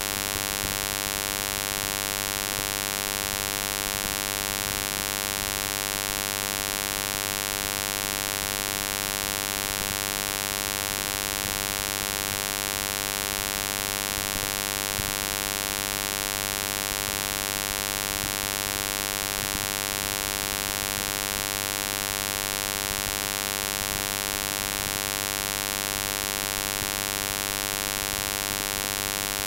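Steady electrical hum and buzz under a constant hiss, unchanging throughout.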